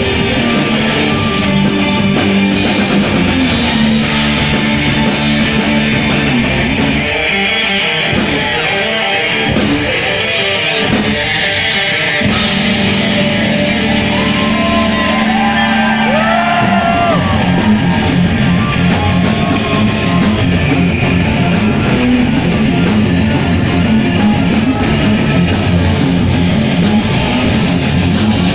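Live prog rock band playing an instrumental passage with distorted electric guitars, bass guitar and drums. Bending lead notes sound in the middle, and a little past halfway the bass and drums turn to a faster, heavier pounding rhythm.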